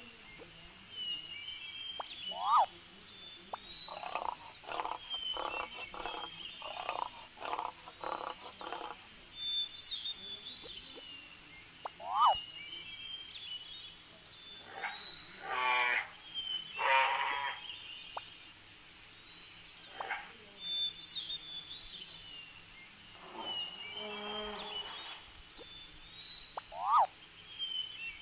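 Wild animal calls over a looping forest ambience of chirping birds: a run of about eight evenly spaced pulsed calls a few seconds in, two loud rattling calls near the middle and another later, and three sharp short squeaks.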